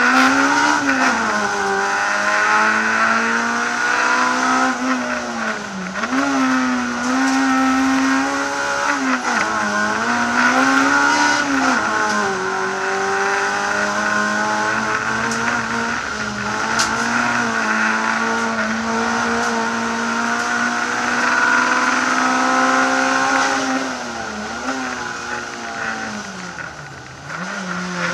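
Honda Civic Type-R EP3's four-cylinder engine at full race pace, heard from inside the cabin. The revs climb hard and drop back several times as it shifts and brakes for corners, with the deepest drop near the end.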